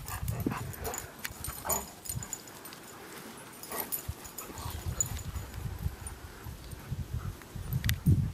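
Several dogs playing and running about on grass, with a short higher-pitched sound near the end, over a low rumble from the moving camera.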